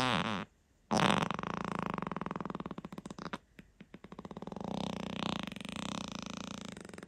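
Human farts in a series: a short one with a falling pitch right at the start, then after a brief pause a long fluttering fart of about two and a half seconds, a few short spurts, and another long drawn-out fart that runs on past the end.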